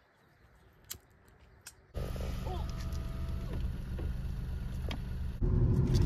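A vehicle running with a steady low rumble that starts abruptly about two seconds in, after near silence broken by a couple of faint clicks.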